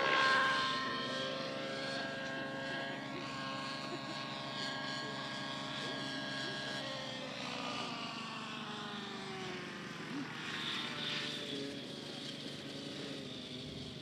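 Radio-controlled model helicopter in flight: a steady whine from its engine and rotor with several tones stacked together. About halfway through the pitch slides down as the helicopter comes in to land.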